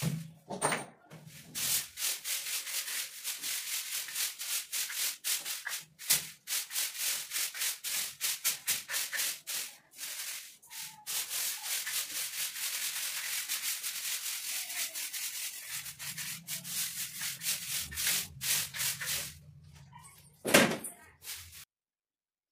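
Grass broom sweeping the top of a kitchen shelf: a long, fast run of scratchy bristle strokes, several a second. A single loud knock comes near the end, and the sweeping cuts off suddenly.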